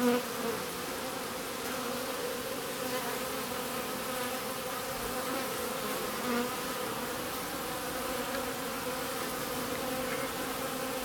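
Honeybees buzzing at a crowded hive entrance: a steady, dense hum of many wingbeats, briefly louder right at the start and again about six seconds in.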